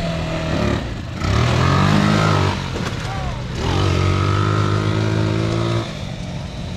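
ATV engines running, one revving up about a second in, easing off, then revving again and holding a steady higher note for about two seconds before dropping back.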